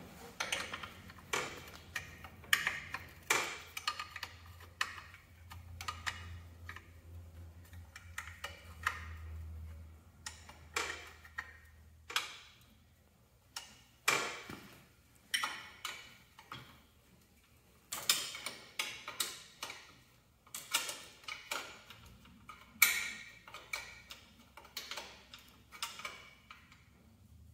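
Hand wrench ratcheting and clinking on metal as bolts holding a hydraulic control valve bracket are tightened: sharp, irregular clicks in short runs with pauses between them.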